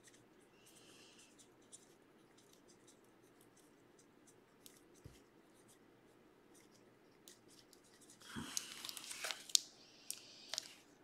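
Faint scratching of a Sharpie marker writing on a plastic card top loader, with small ticks. About eight seconds in, louder crinkling plastic rustles and sharp clicks as the top loader is handled.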